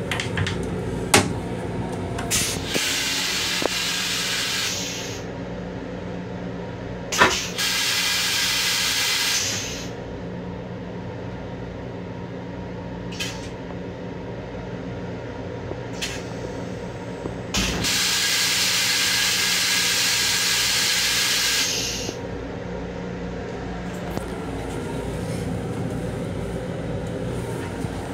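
M7 railcar toilet going through its flush cycle: three hissing bursts, the last and longest about four seconds, with sharp clicks of the flush mechanism. A steady low hum from the railcar runs underneath.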